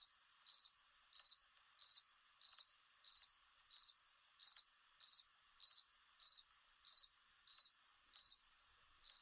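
Cricket chirping: short, high chirps repeating evenly, about one and a half a second.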